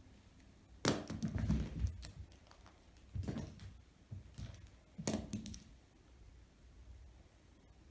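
A cat playing with a pencil on a carpet: faint taps and rustles that come four times over the first six seconds or so.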